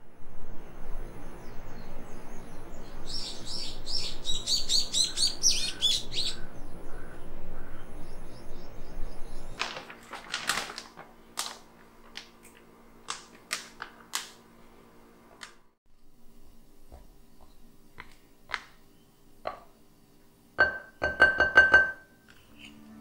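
Birds chirping over a low steady rumble, with a lively run of calls a few seconds in. Then, about ten seconds in, flour is poured from a paper bag into a glass bowl on a kitchen scale: rustling and light knocks, and a quick run of clicks near the end.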